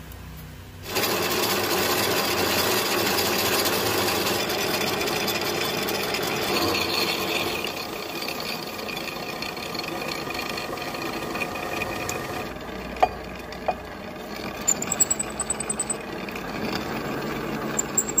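Milling machine face-milling a 25 mm steel plate: the multi-insert cutter bites in about a second in and runs through the cut with a steady, loud cutting noise. Near the end come two sharp clicks and a run of quick rattling knocks.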